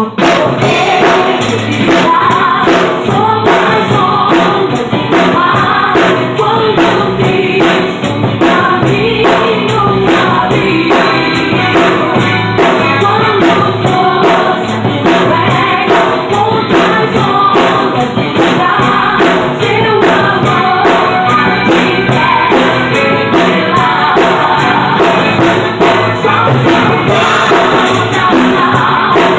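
Recorded gospel hymn with choir-like singing, with a drum kit played along over it; drum and cymbal hits keep a steady beat throughout.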